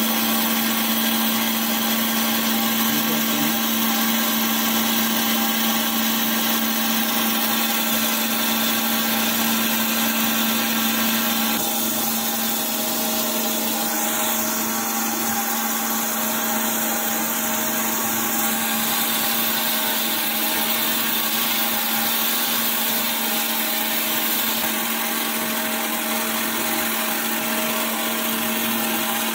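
Surface grinder running steadily, its wheel grinding the face of a worn hydraulic gear pump housing under flooding coolant, with a constant hum and a dense hiss. The pump face is being resurfaced to cure its leaking and loss of pressure.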